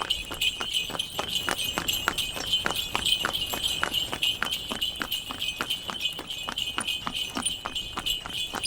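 Horse-drawn tanga on the move: hooves clip-clopping at a steady pace, about four hoofbeats a second, over the continuous jingle of the harness bells.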